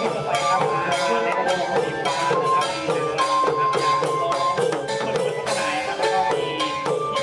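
Thai long-drum (klong yao) procession band playing: hand drums beat a steady, driving rhythm under a sliding melody line.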